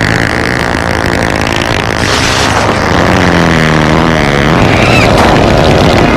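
A loud, harsh novelty phone ringtone: a dense noise with a steady high tone at first and a pitched sound sliding up and down about three to four seconds in.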